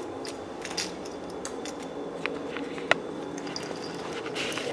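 Steady low household hum with scattered light clicks and rustles of a phone being handled while carried, and one sharper click about three seconds in.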